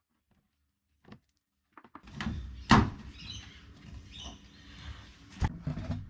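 Plastic trim clips being pulled out of a ute's wheel-arch guard liner: rustling handling of the plastic with a sharp click about three seconds in and another near the end.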